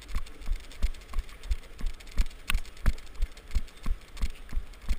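Jogging footfalls jolting a carried camera: steady low thumps about three a second, with a faint tick on some of them.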